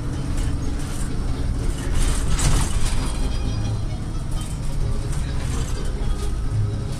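Engine and road noise heard from inside a moving vehicle: a steady low drone with a few light clicks and rattles.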